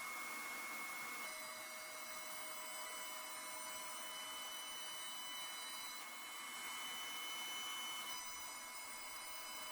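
CNC router running a milling job: a steady hiss with several high, steady whining tones from its motors, which change pitch pattern about a second in, around six seconds and again near eight seconds as the machine changes moves.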